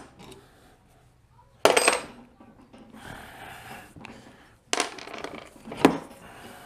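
Sharp metallic clinks of hand tools and small metal parts being handled while fasteners are removed: three of them, one about a second and a half in with a brief ring, and two close together near the end, with a faint scraping between.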